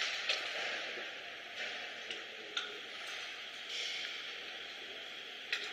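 A few sharp metallic clicks as an Allen key is worked on the screws and aluminium rail of a box-making machine's pressing part, over a steady hiss.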